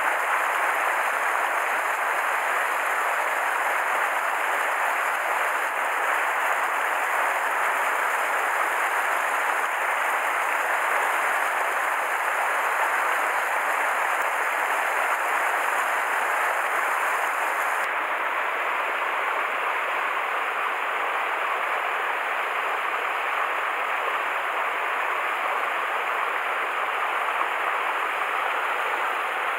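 Small mountain stream flowing over granite boulders and through shallow riffles, a steady, even rush of water.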